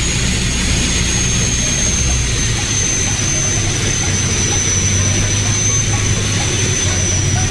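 Cabin noise of a Piper single-engine light aircraft in flight: the piston engine and propeller drone steadily, with a thin high whine that sinks slightly in pitch.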